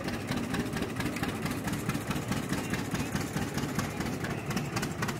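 Vintage John Deere two-cylinder tractor engine running at low throttle with a steady, even beat as the tractor creeps up onto a see-saw balance beam.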